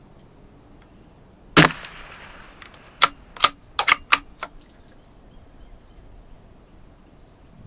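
A single shot from a Savage FV bolt-action .22 LR rifle about one and a half seconds in, with a short fading tail. About a second and a half later comes a quick run of sharp clicks as the bolt is cycled.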